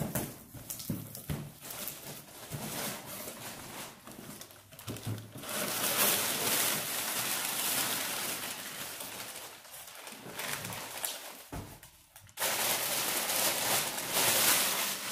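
A cardboard box lid is opened with scattered scrapes and knocks. Then crumpled kraft packing paper and a plastic bag rustle and crinkle in two long stretches, about five seconds in and again near the end, as a wheel is pulled out of its wrapping.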